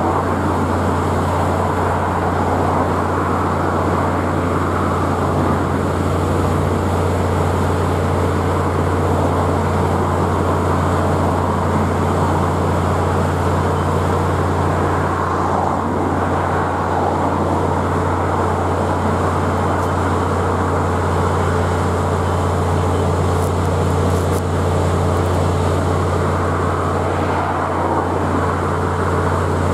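Class 66 diesel-electric locomotive's two-stroke EMD V12 engine running with a steady low drone as it slowly hauls an intermodal container train past.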